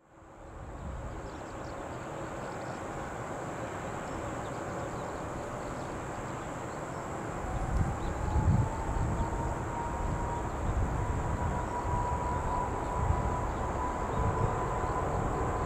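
Turbofan engines of a distant Boeing 777-300 spooling up for takeoff: a whine that rises in pitch and then holds steady over a low rumble that grows louder about halfway through.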